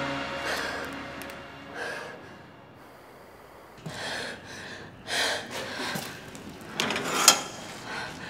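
Tense drama score fading out, then a quiet stretch with a few short rustles and breaths as someone moves through a dark shed. A sharp click comes about seven seconds in.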